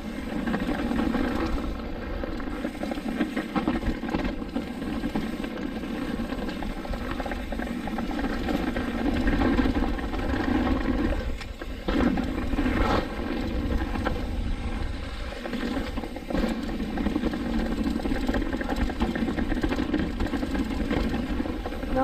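Mountain bike riding fast down a dirt and rock trail. Tyres roll and bike parts rattle in a steady noise, with knocks over bumps, near 12 s among others.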